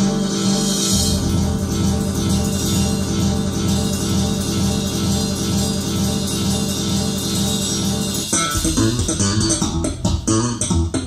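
Guitar and bass-guitar music played back through Focal Chorus 726 S loudspeakers. A low bass line comes in about a second in, and near the end the held chords give way to shorter plucked notes.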